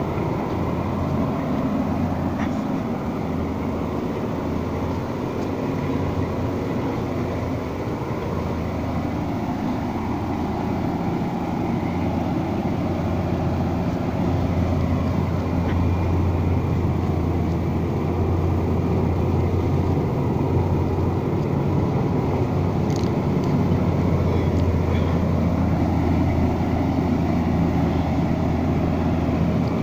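1974 Marmon truck's diesel engine pulling a load, a steady low drone that grows slowly louder.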